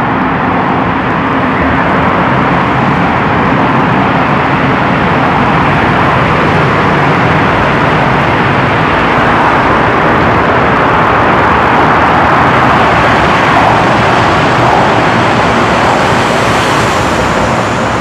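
Road traffic inside a road tunnel: a dense, steady wash of vehicle and tyre noise. It grows a little louder past the middle, with a brighter hiss near the end.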